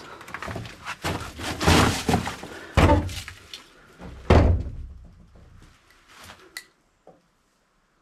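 A series of heavy thuds with scraping noise between them: three loud ones in the first half, then a few faint clicks and knocks.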